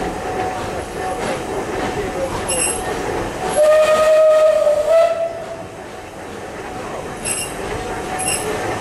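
Steam whistle of a Beyer Peacock 2-4-0 tank locomotive blown once for about a second and a half, stepping up slightly in pitch just before it stops. Under it, the narrow-gauge coaches rumble steadily along the track, with a few brief high squeaks.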